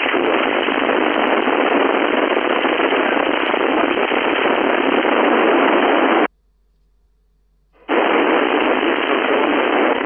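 Open-squelch hiss from an FM radio receiver on the 11-meter (27 MHz) band, with no station coming through. The hiss cuts off abruptly for about a second and a half past the middle, then returns.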